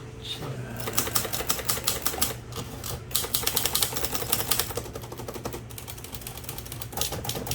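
Keys of a Korean Hangul manual typewriter being typed rapidly, the typebars striking in quick runs of clicks with short pauses between them.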